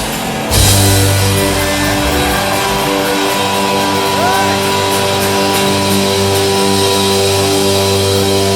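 Live pop-rock band music played loud through a concert sound system, with electric guitar and drums. After a brief dip at the start, the music comes back about half a second in with long held notes.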